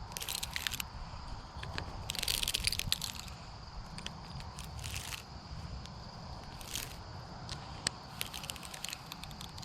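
Footsteps crunching and crackling through dry fall leaves and debris on a creek bank. They come in irregular rustling clusters, the heaviest about two seconds in, with a few sharp clicks near the end.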